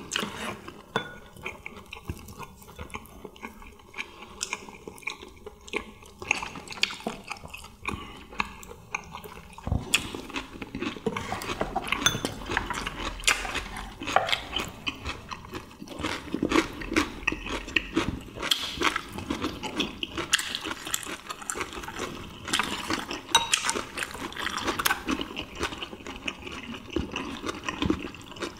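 Two people eating: chewing, with chopsticks and spoons clicking against ceramic bowls. Many quick small clicks and knocks, getting busier about ten seconds in.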